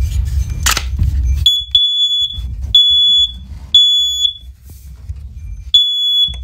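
Third-generation First Alert OneLink hardwired smoke alarm sounding its test alarm: high-pitched beeps in the temporal-three pattern, three half-second beeps a second apart, a pause of about a second and a half, then three more. Before the beeps start, about a second and a half in, there is low rumbling noise and a sharp knock.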